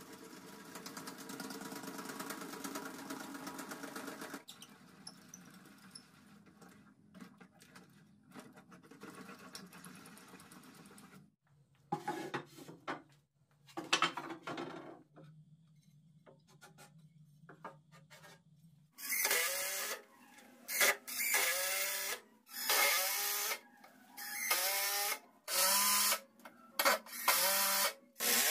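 Workshop tool sounds. A small power tool runs steadily for about four seconds and stops, then come scattered handling noises and a low steady hum. From about two-thirds of the way through there are loud, rhythmic back-and-forth scraping strokes, about one a second, of a hand tool working material.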